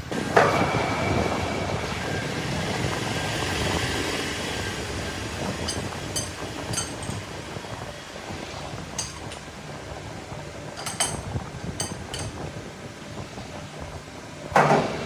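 Manual metal lathe running steadily, with a loud knock just after the start, several short ringing metallic clinks in the middle, and a loud clank near the end.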